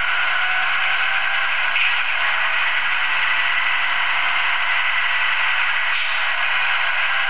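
Sound decoder in an HO scale Athearn MP15AC model diesel locomotive playing its engine sound through a small speaker. It comes out as a steady, hissy rush with no bass.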